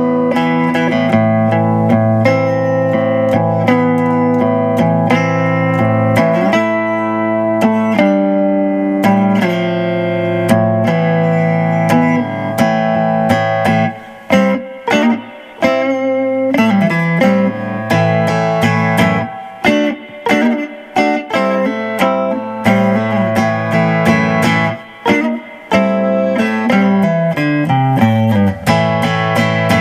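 Monoprice Indio Retro Classic Tele-style electric guitar played amplified: strummed chords and single-note lines, with a few short breaks in the second half and a descending run of low notes near the end.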